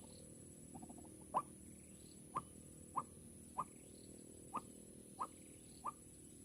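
White-breasted waterhen (ruak-ruak) calling: a series of short, sharp notes repeated about once every second, seven in all.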